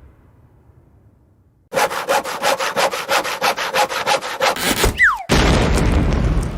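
Cartoon sound effect of a hand saw cutting quickly through wood, about five strokes a second for some three seconds, followed by a short falling whistle and a loud crash that slowly fades.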